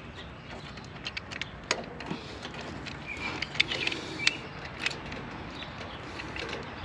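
Scattered light clicks and rattles of wire spade terminals and a residential AC contactor being handled by hand as wires are worked on its terminals.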